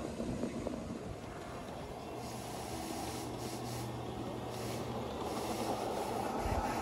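Miniature ride-on train running on 7.25-inch gauge track: a steady rumble of wheels on rail, with a low steady hum from about two to five seconds in.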